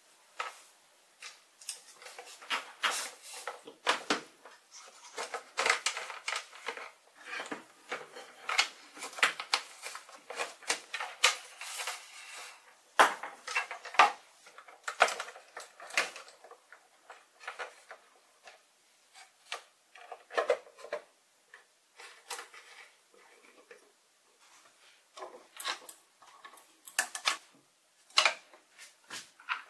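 Irregular clicks, taps and clatter of hands working on a lathe: handling 3D-printed plastic parts and cables, and plugging in cable connectors. The handling is busiest in the first half, with scattered clicks after it.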